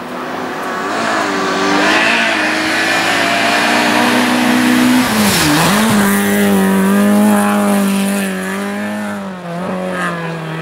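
Rally car engine running hard at high revs, with a sharp drop and recovery in pitch a little past halfway and a shorter dip near the end, as the driver lifts or changes gear.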